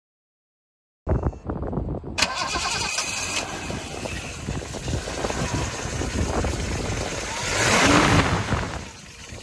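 1977 Datsun 280Z's 2.8-litre fuel-injected inline-six starting up about a second in and settling into a steady idle. A louder swell comes near the end.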